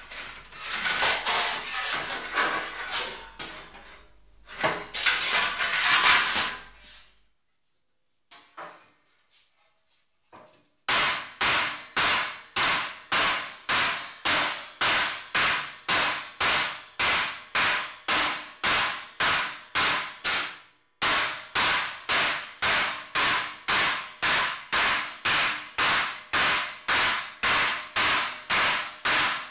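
A sheet-steel panel being handled and flexed over a steel table, rattling and wobbling for several seconds. After a short quiet spell, a wooden mallet strikes a strip of sheet steel laid on the steel welding table, evenly at about two blows a second, with one short break partway through.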